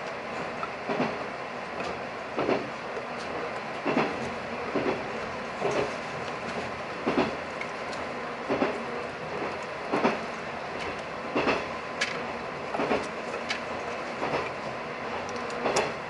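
Diesel railcar running on jointed track, heard from inside the car: a steady rumble with wheel clacks over the rail joints about every one and a half seconds.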